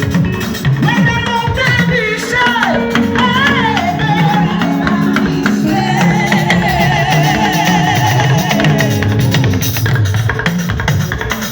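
Upbeat gospel praise band music with a steady drum and bass beat. A wavering lead melody slides between notes over it from about a second in, then fades near the end.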